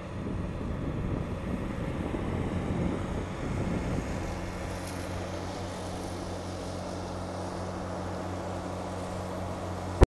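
Steady low engine hum under a haze of outdoor noise.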